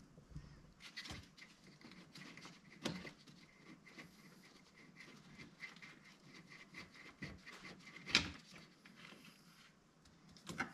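Faint, irregular clicking and scraping of a compact ratchet driver and bit working a radiator bleed screw loose deep in an engine bay, with one sharper click about eight seconds in.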